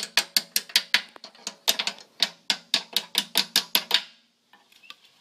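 Small hammer tapping rapidly on the rusted hinge of a cast iron wood stove's front door, about five sharp metallic knocks a second. It stops about four seconds in, followed by a few faint clicks.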